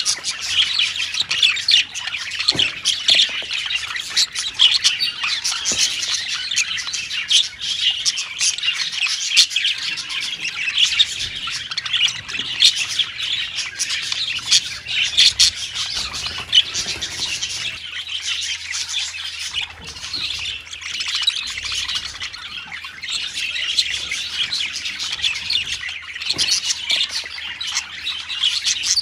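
A colony of budgerigars (parakeets) calling together: a constant, dense chatter of many overlapping chirps and squawks.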